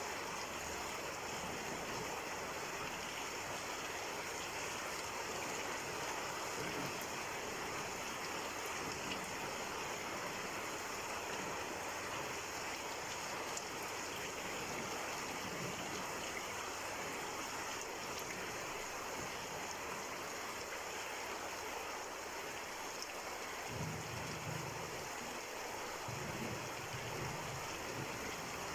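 Steady rain falling, an even hiss of raindrops. A low rumble comes in for a few seconds near the end.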